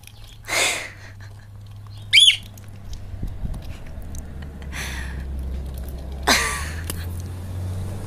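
Parrot calling: four separate calls a second or two apart, mostly harsh squawks, with one short, high, wavering whistle about two seconds in. A steady low hum runs underneath.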